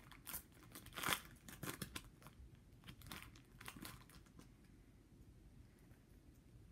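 Crinkling and crackling of a Pokémon trading-card booster pack's foil wrapper and the cards being handled: a string of sharp crackles over the first four seconds, loudest about a second in, then fading to faint rustling.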